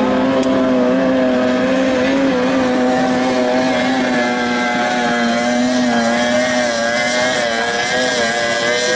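Several 30 hp racing tunnel-boat outboard engines running at full throttle together, a steady high-pitched drone whose pitch wavers slightly as the boats race.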